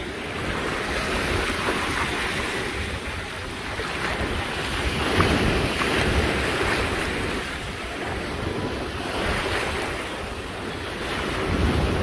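Small waves washing onto a sandy beach, the surf noise rising and falling, louder about halfway through and again near the end. Wind buffets the microphone.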